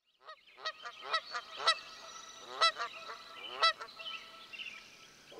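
Geese honking: a run of about eight loud honks over the first four seconds, thinning out to faint calls near the end.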